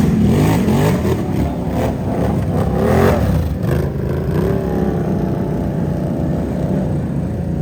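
Can-Am Outlander ATV's V-twin engine revving, its pitch rising and falling several times, then running more steadily for the last couple of seconds.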